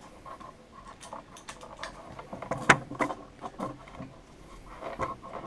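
Irregular small clicks, taps and light rattles of hands handling a 3D printer's LCD panel assembly: acrylic mounting plates, small screws and brass standoffs. One sharper click about two and a half seconds in is the loudest.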